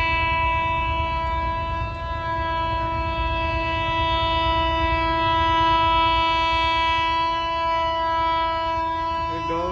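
Train horn held in one long, steady blast over a low rumble. Near the end it sags in pitch and cuts off.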